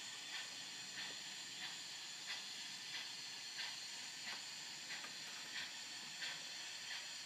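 O gauge model steam locomotive's DCC sound decoder (ESU LokSound carrying an LBSC Terrier sound file) playing slow, even exhaust chuffs, about three every two seconds, over a steady hiss.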